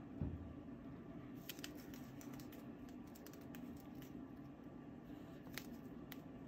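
A paintbrush working acrylic paint on a sketchbook page: a soft thump just after the start, then faint scratches and small clicks through most of the rest, over a steady low hum.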